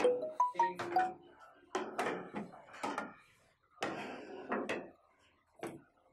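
Ceramic plates and bowls set down one after another on a table: a string of clinks and knocks, several in the first second with a short ringing note.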